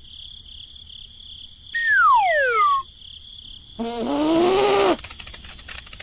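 Added cartoon sound effects over a faint steady high hum: a falling whistle glide about two seconds in, then a short wordless cartoon-character voice sound near the five-second mark, followed by faint rapid ticking.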